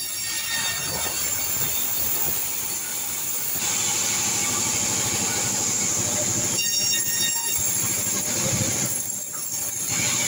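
Large sawmill band saw ripping santol (kecapi) wood into beams and rafters, the blade running through the board with a loud steady noise. The noise eases twice in the second half, when a thin high whine from the running blade comes through.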